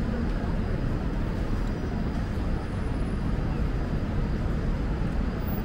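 Steady low rumble of outdoor city ambience, with no single event standing out.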